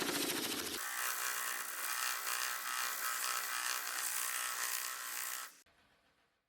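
Power tools working wood, in two edited shots. First a buzzing tool with rapid even pulses, then, after a cut about a second in, a steady higher hissing tool sound that stops abruptly near the end.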